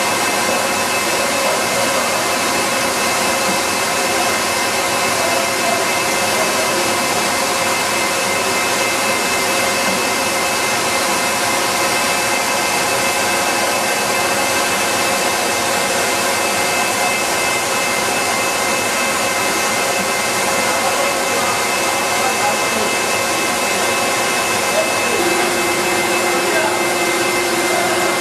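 Steady process machinery running: electric agitator motors and equipment on stainless cooking and mixing kettles, a constant hiss with several held hum tones. A further low steady hum joins about 25 seconds in.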